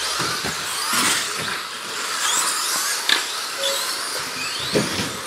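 Several 2WD R/C buggies racing on an indoor track, their electric motors whining high and rising and falling in pitch as they accelerate and brake. A few sharp knocks cut through the whine.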